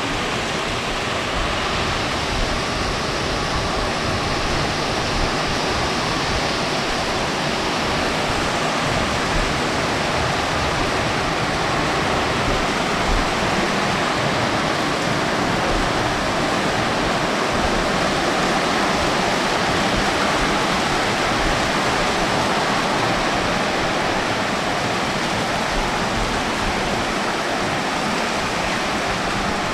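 Heavy rain mixed with hail pouring down, a steady dense hiss.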